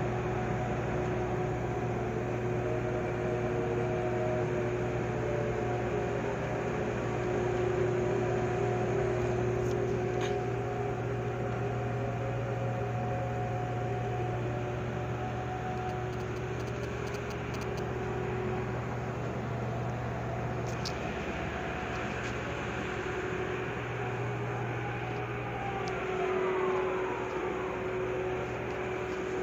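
Floating crane's machinery running steadily while loading coal: a constant low hum with several whining tones on top, some of which glide down and up in pitch near the end.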